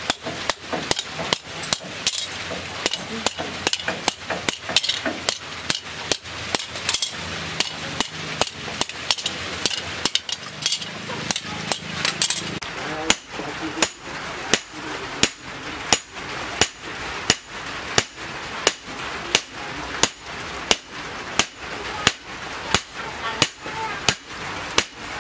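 Hammer blows on a chisel cutting the outline of a steel cleaver blank. The strikes start quick and uneven, then settle into a steady beat of about one and a half a second from about halfway through, each with a short metallic ring.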